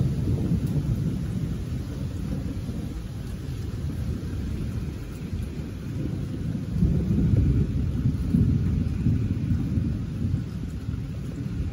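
Thunder rumbling on and on during a lightning storm, swelling louder about seven seconds in, over a steady hiss of rain.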